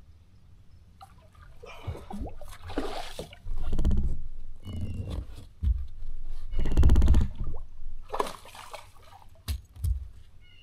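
A hooked bass splashing and thrashing at the water's surface beside the boat as it is fought in and landed, in a run of irregular splashes, the loudest about a third of the way in and again past halfway.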